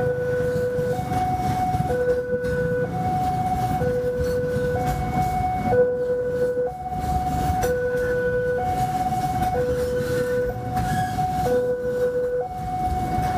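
Railway level-crossing warning alarm sounding an electronic two-tone signal, a lower and a higher tone alternating, each held about a second, without a break. Underneath it runs the low, steady noise of a container freight train rolling through the crossing.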